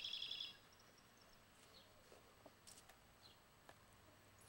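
A short, fast bird trill right at the start, then near quiet with a few faint high chirps.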